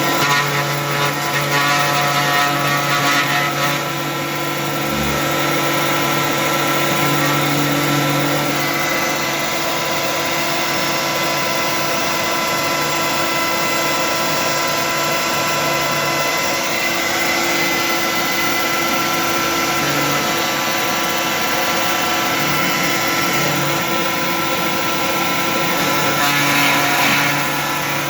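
Steady running of the motors of a desktop CNC 3018 milling setup with its cyclone dust vacuum. It is a loud, even whine with several fixed tones that holds without pause.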